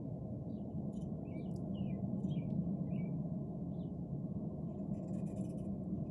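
A steady low background hum, with faint short falling chirps like small birds over it during the first half.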